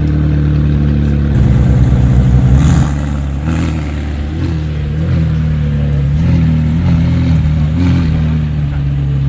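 McLaren Senna's twin-turbo V8 running at idle. It swells louder for a moment between about one and three seconds in, then gives a string of small throttle blips, the pitch rising and settling several times.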